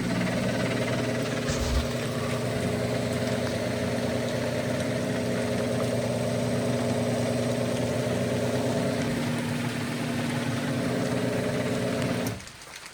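Genie IntelliCode IS900A garage door opener's motor running steadily with an even hum, driving the door open, then stopping about twelve seconds in.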